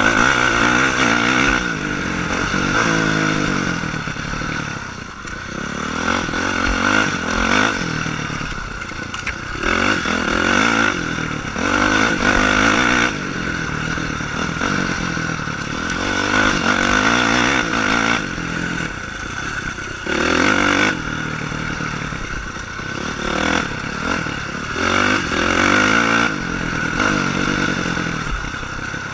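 Honda CRF450 dirt bike's single-cylinder four-stroke engine at race pace, revving up and dropping off again and again as the throttle is opened and closed, with clattering knocks over rough ground.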